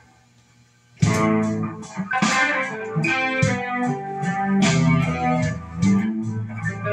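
Electric guitar played through an amplifier, coming in sharply about a second in with picked chords and single notes that ring on.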